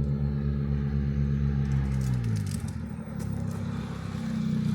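Chevrolet Astra 2.0 four-cylinder engine running through a straight exhaust pipe with no muffler: a steady low engine note that drops in pitch about two seconds in and turns rough and uneven, firming up again near the end.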